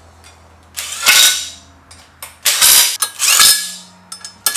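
Cordless impact driver hammering in short bursts as it runs down the flexplate-to-crankshaft bolts: three bursts, and a fourth starting right at the end.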